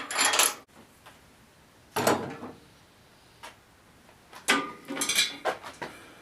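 Metal clanking and rattling in three bursts as clamps and a long metal level are handled and taken off a lathe's bed rails, some strikes ringing briefly.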